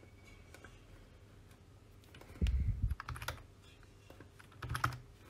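Computer keyboard and mouse clicks: a dull thump with a quick cluster of key clicks about halfway in, a few more clicks after, and another short burst of clicks near the end, over faint room tone.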